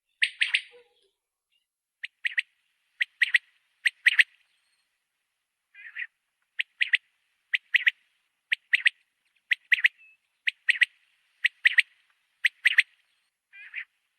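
Common quail singing: short, sharp, clipped notes, mostly in pairs, repeating about once a second, with a pause just before halfway.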